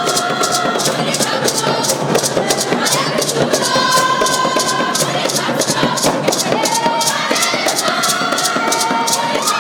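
A group of voices singing together over a steady, fast percussive beat, with crowd noise.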